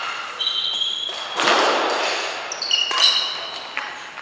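Court shoes squeaking on an indoor sports-hall floor as badminton players shift position: a drawn-out squeak early on and a few short ones near the end, with a hissing burst about a second and a half in.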